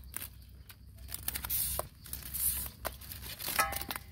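Irregular rustling and crinkling handling noises with scattered clicks, and a brief pitched squeak about three and a half seconds in.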